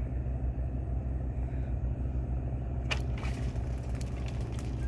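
Steady low rumble, then about three seconds in a short burst of splashing and rustling as a hooked fish is pulled up out of the water hyacinth on a bamboo pole.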